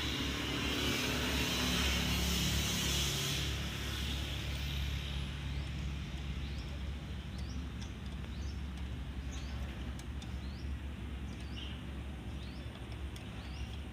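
Steady low engine rumble, louder in the first three seconds or so, with short high bird chirps scattered through the second half.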